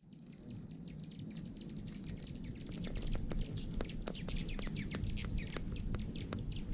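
A flock of small birds chirping, a dense run of short high chirps that fades in over the first few seconds, over a low background rumble.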